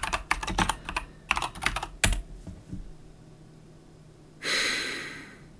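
Computer keyboard being typed on in quick keystrokes for about two seconds, ending with a harder stroke. Then a short rush of noise about four and a half seconds in.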